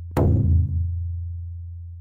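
Edited-in cinematic impact sound effect: a sudden hit just after the start, then a low hum that slowly fades away.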